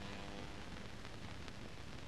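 Steady hiss with scattered faint clicks and crackle, the noise floor of a silent film transfer with no recorded sound; a faint hum shows briefly in the first half second.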